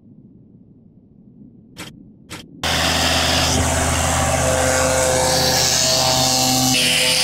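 New Holland TD80D tractor's diesel engine running steadily under load while its mounted mower cuts green oats, a constant engine drone under a heavy hiss. It starts suddenly about two and a half seconds in, after two short clicks over a faint low rumble.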